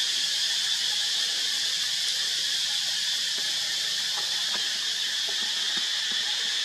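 Steady high-pitched outdoor background hiss, with a few faint soft rustles in the second half.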